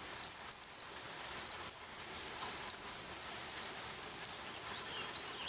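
Cricket chirping in a steady high trill that cuts off abruptly about four seconds in, over a soft hiss of night ambience.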